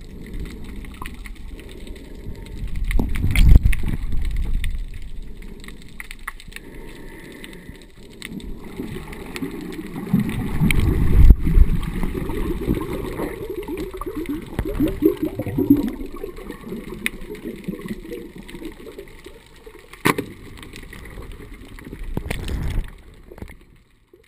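Water sloshing and bubbling as a swimmer moves just under the surface, heard underwater as a low rumble. It surges about three seconds in and again around ten to twelve seconds in, then cuts off near the end.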